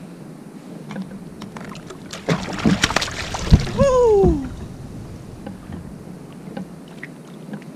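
Handling clatter on a plastic fishing kayak and a splash as a caught yelloweye rockfish is let go over the side, with a heavy thump. A short cry falling in pitch follows.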